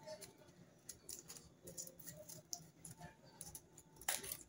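Faint scattered clicks and light taps of hands handling craft materials on a work table, with a few louder taps near the end.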